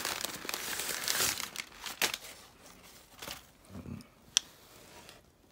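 Reptile shipping bag being handled and pulled open: rustling and crinkling, busy for the first two seconds and then quieter, with one sharp click about four seconds in.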